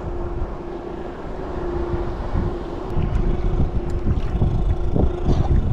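Bixby electric kayak motor running in its lowest gear with a steady hum, holding the kayak in position against the tide, with gusty wind on the microphone. A few light clicks sound in the second half.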